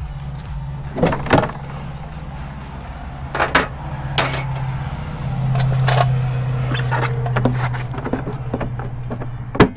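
Scattered metallic clinks and knocks of hand tools and hardware being worked, over a steady low hum that swells in the middle; one sharp knock near the end is the loudest.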